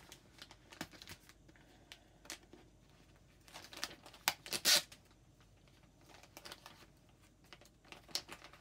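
Soft plastic baby-wipe packet rustling and crinkling as it is handled and wipes are pulled out, in short scattered rustles, the loudest a quick run of crackles about four to five seconds in.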